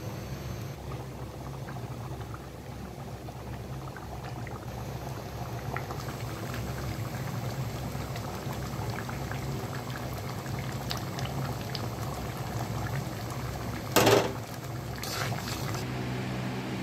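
A thick dal curry of muri ghonto simmering in a wok, bubbling with many small pops over a steady low hum. About 14 seconds in there is one loud, brief noise, and a softer one follows shortly after.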